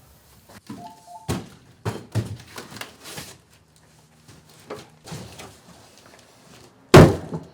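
Indoor knocks and clicks of things being handled, with a brief two-note electronic beep about a second in and a loud thump near the end.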